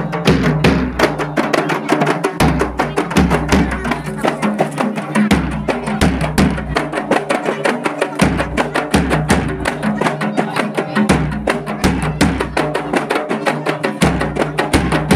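A rebana ensemble of hand-held frame drums played in a fast, steady rhythm, with a large bass drum thumping underneath and men singing along.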